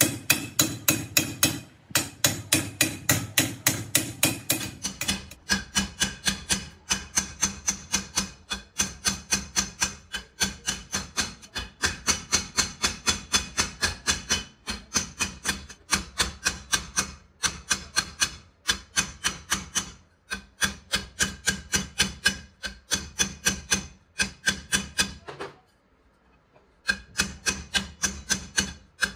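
Hammer striking a steel hydraulic jack cylinder tube in rapid, even blows about three a second, each with a metallic ring; the hammering stops for about a second near the end, then goes on.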